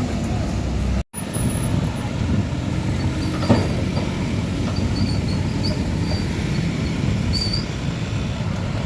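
Road traffic noise from heavy vehicles passing close by: a steady rumble of engines and tyres, broken by a brief cut to silence about a second in.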